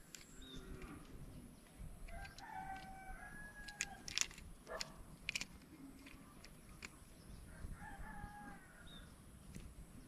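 A rooster crowing twice, each crow about a second and a half long, about 2 s and about 8 s in. Scattered sharp clicks sound throughout.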